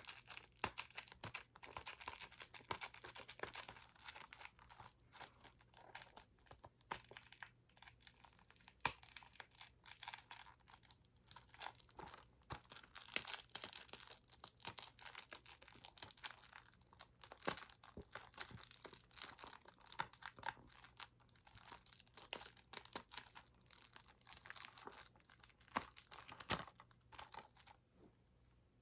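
Plastic shrink-wrap being torn and peeled off a Blu-ray case, crinkling with many small irregular crackles.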